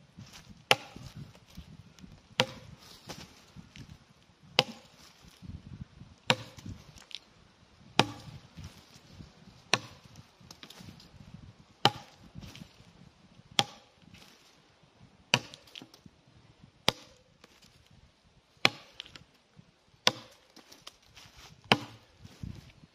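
Cold Steel Trail Hawk tomahawk chopping into a fallen log: a steady series of about thirteen sharp strikes on the wood, roughly one every second and a half to two seconds.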